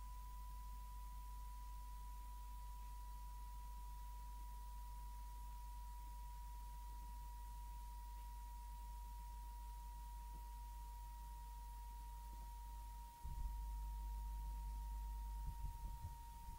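A steady high pure tone, drifting very slightly lower in pitch, over a low electrical hum. The hum gets louder about thirteen seconds in.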